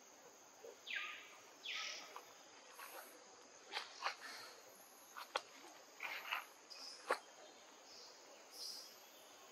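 Steady high insect drone with a few short rustles and sharp clicks scattered through it.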